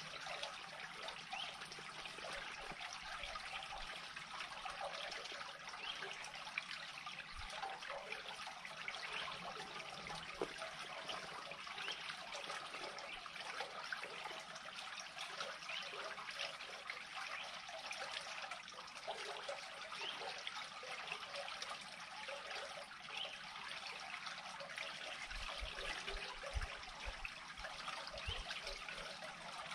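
Water draining steadily from a pool into an unclogged culvert pipe, a continuous trickling flow. A few low thumps come near the end.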